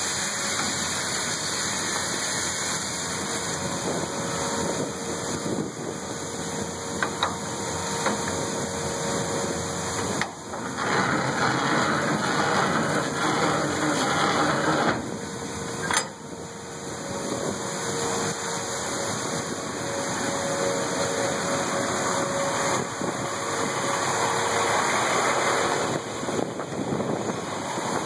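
Steady running of machinery at a grain elevator dump pit, with an idling truck engine and a faint hum, broken by a few sharp knocks.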